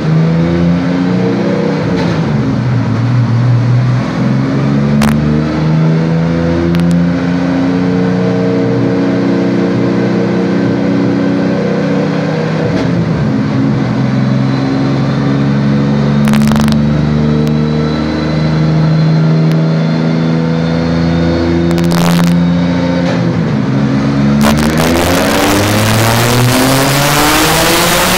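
Turbocharged drift car engine running under load on a chassis dynamometer during a tuning run, its revs rising and falling several times. Two short sharp bursts cut in around the middle. Near the end a loud rushing noise joins in as the revs climb.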